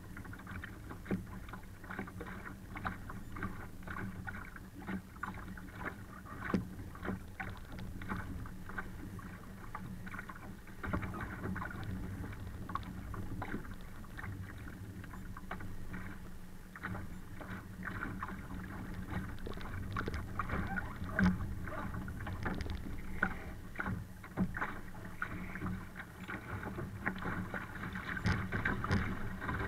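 Water rushing and splashing against the hull of a Laser sailing dinghy under way in strong wind, with many small irregular slaps and knocks and a muffled, rushing quality.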